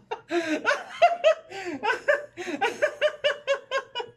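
A man laughing heartily in a long run of short bursts.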